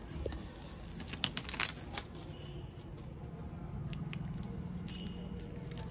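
Clear plastic protection film on a motorcycle fuel tank crackling under fingers as its edge is touched and lifted, with a quick run of sharp crackles about a second in and a few scattered clicks later.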